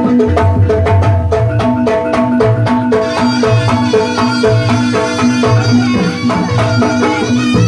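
Loud live East Javanese jaranan music: drums beating a steady pattern under a repeating gong-chime figure, joined about three seconds in by a shrill reed-pipe melody.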